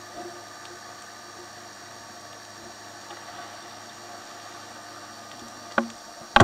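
Underwater hiss with a faint steady hum, then two sharp splashes close together near the end as divers plunge in from the surface, the second trailing into bubbling.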